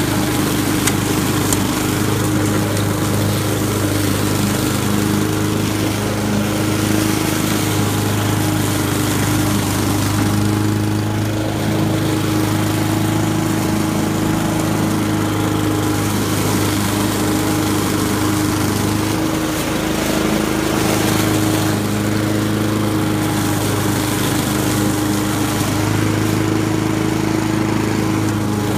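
Honda walk-behind lawn mower's single-cylinder four-stroke engine running steadily as the mower cuts through a thick layer of fallen leaves on grass.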